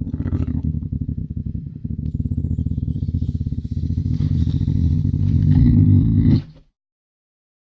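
Lynx growling: a low, rapidly pulsing growl that grows louder in its second half and cuts off suddenly about six and a half seconds in.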